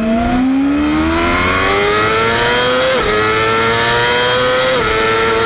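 Kawasaki racing motorcycle's engine at full throttle off the race start, its note climbing through the gears, with a quick upshift about halfway through and another near the end.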